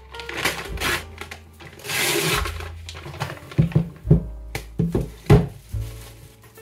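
Brown paper mailer bag rustling as it is pulled open by hand, then several sharp thumps and crinkles as the boxed device is slid out and handled on a tabletop, with a plastic wrapping bag crinkling near the end.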